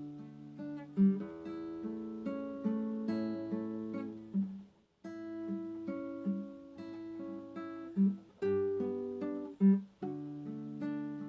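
Acoustic guitar playing slow, gently plucked chords and single notes, with a brief pause about halfway through.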